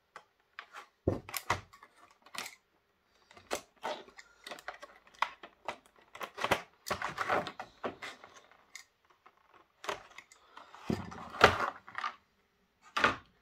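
Stiff clear plastic packaging being handled and opened: irregular clicks, snaps and crackles, with a few heavier knocks, the loudest about eleven seconds in.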